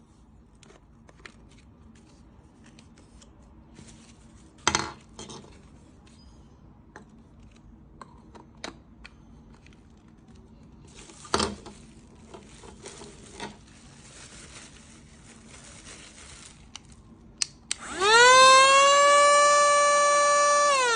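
A few scattered knocks and clicks, then a portable handheld vacuum cleaner's motor switches on near the end, its whine rising quickly to a steady high pitch.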